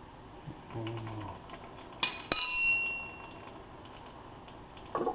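A wrench clinking on the metal drain plug and frame under a tractor: two sharp metallic clinks about a third of a second apart, each ringing briefly, with a few fainter knocks around them and a dull knock near the end.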